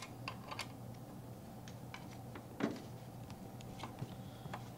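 Small scattered clicks and taps of a hand driver turning a bolt in the metal clamp hardware of a swing-away wheelchair amputee support as it is tightened down, with one louder knock about two and a half seconds in.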